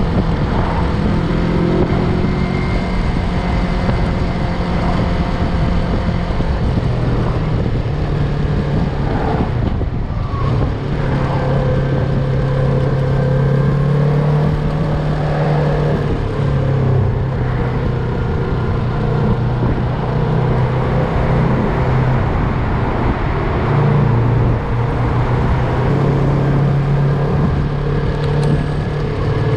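Yamaha MT-03 motorcycle engine running under way, its pitch stepping up and down several times with throttle and gear changes, over a steady rush of noise.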